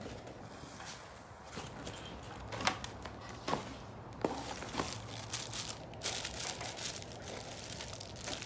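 Gift packaging being opened and handled: crinkling and rustling, with several sharp clicks and taps in the middle and a longer stretch of rustling near the end.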